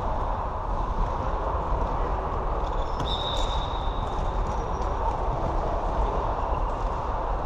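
Continuous clatter and rumble of floorball play in a sports hall: running feet, sticks and ball knocking, with a short high squeak about three seconds in.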